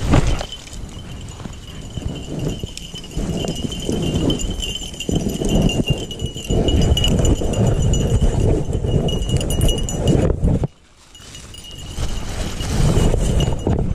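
Footsteps and rustling through brush and dry leaves, with a faint high ringing throughout. The rustling stops suddenly about two-thirds of the way in and then picks up again.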